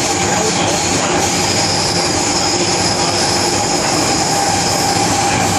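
Hong Kong MTR Kwun Tong line train running at speed between stations, heard from inside the car: a loud, steady rumble of wheels on rail and running gear, with a few steady whining tones.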